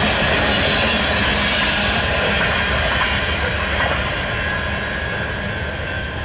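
Freight cars rolling past on steel rails: a steady rumble of wheels on track with a few clicks, easing off near the end as the last car goes by.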